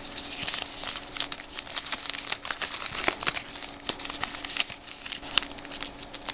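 Wrapped baseball card packs crinkling as they are handled and squeezed, with many small crackles, over a faint steady hum.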